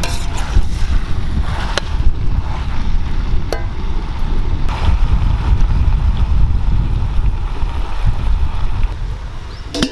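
Wind buffeting the microphone: a loud, uneven low rumble, with a few sharp clicks and knocks scattered through it.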